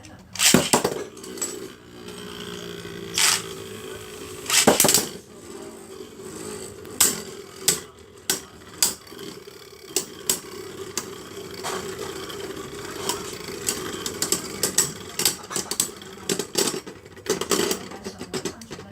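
Two Beyblade Burst spinning tops whirring in a plastic stadium, a steady hum that sets in just after the start and runs almost to the end. Sharp clacks of the tops colliding recur throughout, loudest near the start and again about five seconds in.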